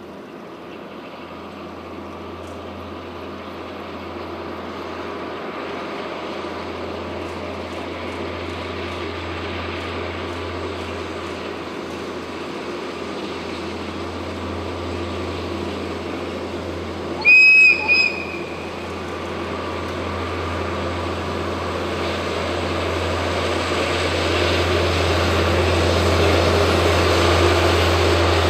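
A diesel train approaching, its engine drone growing steadily louder. About two-thirds of the way through it sounds one short horn blast.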